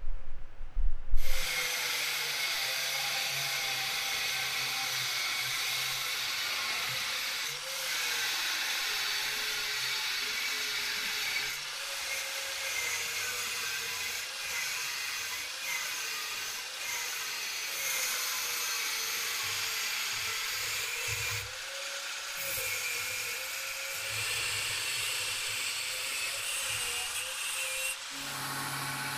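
Angle grinder with a thin cut-off disc cutting through a hardened steel file along the blade outline: a steady, high grinding with a slightly wavering pitch that starts about a second in. Near the end it changes to a lower, steadier hum.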